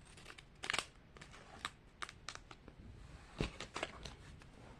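Faint crinkling and rustling of a small plastic Mini Brands packet being handled and opened. It comes as scattered light crackles and clicks, with the sharpest ones about two-thirds of a second in and again past the three-second mark.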